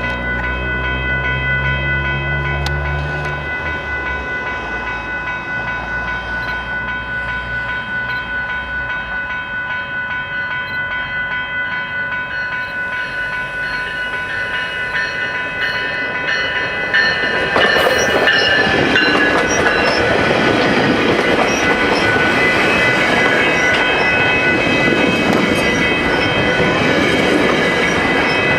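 GO Transit commuter train at a level crossing: steady ringing tones, likely the crossing bells, with a low diesel rumble fading in the first few seconds. From about 17 seconds in, a louder rushing clatter of the train's wheels passing on the rails takes over.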